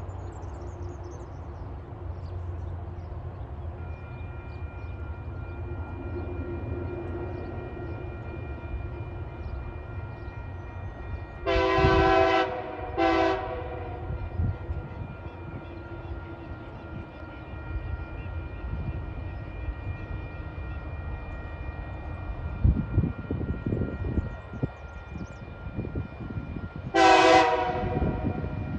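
TasRail TR-class diesel locomotive sounding its horn for the level crossing: a long blast and a short one about twelve seconds in, then another blast near the end. Under it the crossing's warning bell rings steadily from a few seconds in, and the locomotive's low engine rumble grows louder as it approaches.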